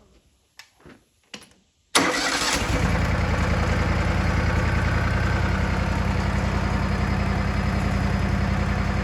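A 2003 Wood-Mizer LT40 sawmill's engine starts abruptly about two seconds in, after a near-silent stretch with a few faint clicks, then runs steadily with an even beat.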